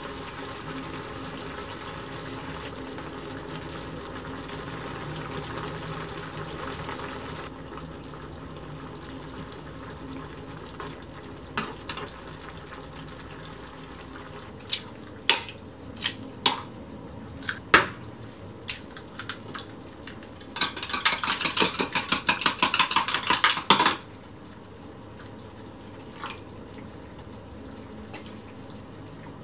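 Tomato-and-pork stew simmering in a pan with a steady bubbling hiss that cuts off abruptly about seven seconds in. Scattered sharp utensil clicks follow, then a few seconds of fast clinking of a utensil against a container.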